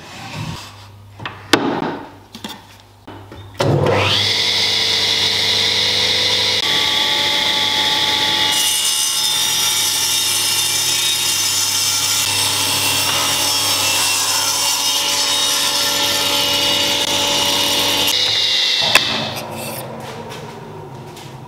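Table saw ripping a wooden knife-handle blank. The saw runs lightly at first, then from about four seconds in the blade cuts through the block in one long, steady, loud cut. The cut ends a few seconds before the end, and the sound fades as the blade runs free.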